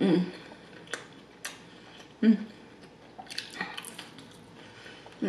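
A person biting into the crisp fried crust of a banana langka pie: a crackly crunch about three seconds in, after a few sharp mouth clicks and a short hum.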